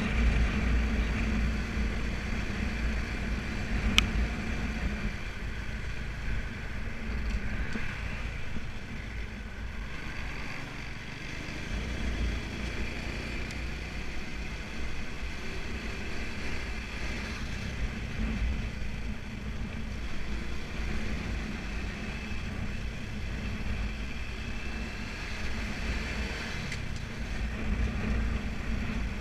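Motorbike engine running while riding at street speed, with wind and road noise on the microphone. The engine drops back about ten seconds in and picks up again a couple of seconds later. A single sharp click about four seconds in.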